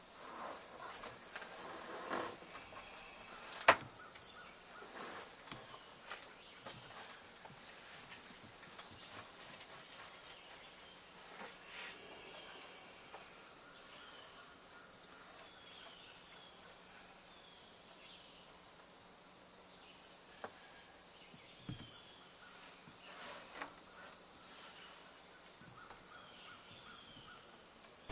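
Steady, high-pitched chorus of insects droning without a break. A single sharp click about four seconds in stands out as the loudest sound.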